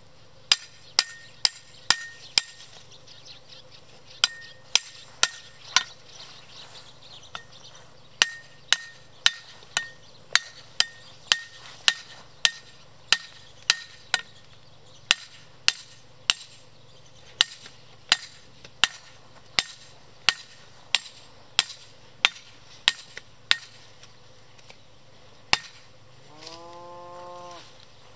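A hammer striking a steel tethering stake, driving it into the ground: sharp metallic clanks about two a second, in runs with short pauses. Near the end a cow gives one short low moo.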